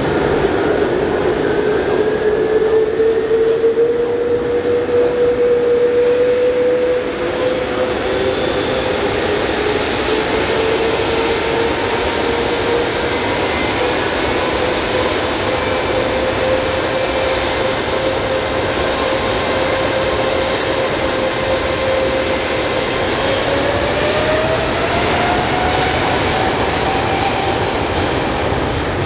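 Boeing 787-9 jet engines, Rolls-Royce Trent 1000 turbofans, running steadily with a held tone while the airliner sits on the runway, then spooling up with a rising whine about six seconds from the end as takeoff thrust is set.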